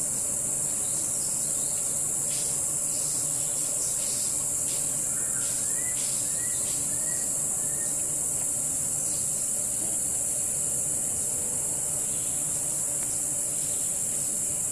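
Steady high-pitched chorus of insects, with short rising chirps now and then.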